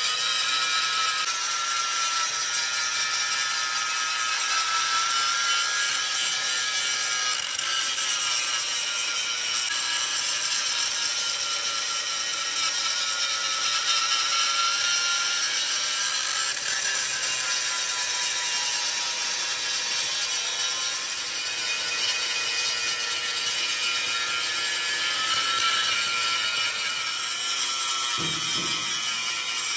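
A power tool running continuously under load: a high, steady whine whose pitch sags and recovers as it bites into the work.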